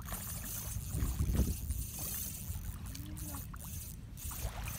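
Wind noise on the microphone over small waves lapping gently at a sandy shoreline.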